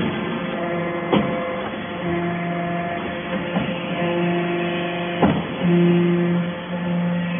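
Background guitar music: held notes that change every second or two, with a few sharp plucked notes.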